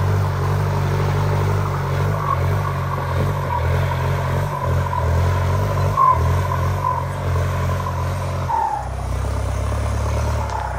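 Kubota M7508 tractor's turbocharged diesel engine running steadily under load while pulling a disc plough, with a faint turbo whistle over the engine note. About eight and a half seconds in, the engine note steps down and the whistle slides lower in pitch.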